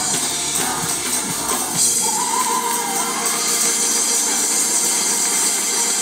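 Gospel choir singing with a tambourine jingling; the low accompaniment drops away about two seconds in while voices carry on.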